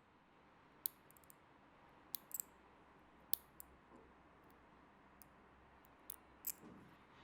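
Fingernails being cut: a series of short, sharp, high clicks at irregular intervals, some in quick pairs, each one a snip through a nail.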